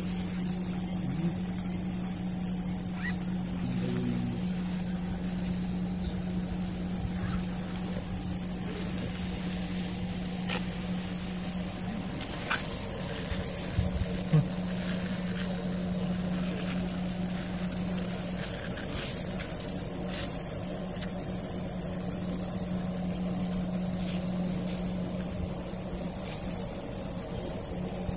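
A steady, high-pitched outdoor chorus of buzzing insects, with a steady low hum underneath and a few faint clicks.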